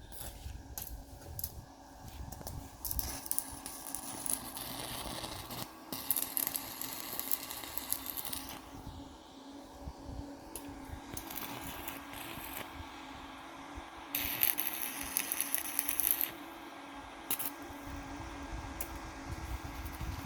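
Arc of a small welding machine crackling and hissing in two runs: a longer one a few seconds in and a shorter one about two-thirds of the way through. A steady low hum runs underneath.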